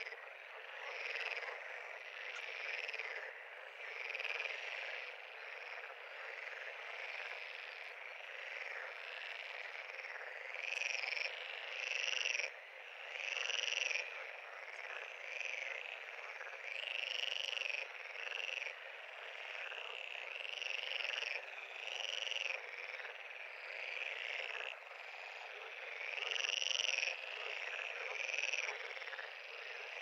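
A chorus of many frogs calling at a pond: a dense, continuous mass of calls, with louder single calls about a second long standing out every second or two.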